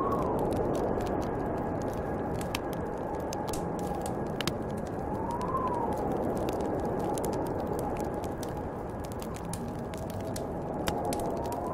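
Snowstorm wind blowing steadily, with a howling whistle that rises and falls about every five to six seconds, over the snapping and popping of a crackling wood fire.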